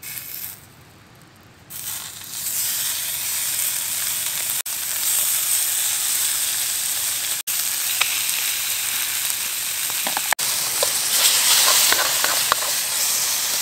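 Bacon sizzling in a hot frying pan on a small gas-canister camp stove. The sizzle starts as the first strip touches the pan and builds to a loud, steady hiss as more strips go in, with sharp pops and crackles near the end.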